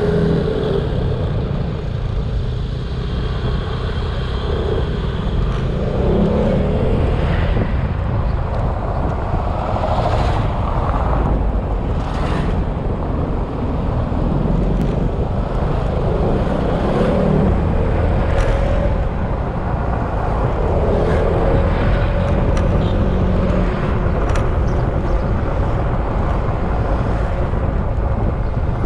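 Yamaha XMAX scooter's single-cylinder engine running on the move, its pitch rising and falling several times with throttle and speed, over a heavy rumble of wind on the microphone.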